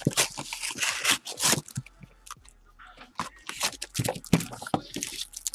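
Cardboard hanger box and the plastic-wrapped pack of baseball cards inside it being handled: irregular crinkling and scraping as the pack is worked out of the box, in two spells with a short lull between them.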